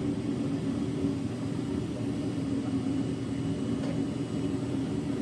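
Foundry furnace burner running steadily, keeping a crucible of copper for bronze molten.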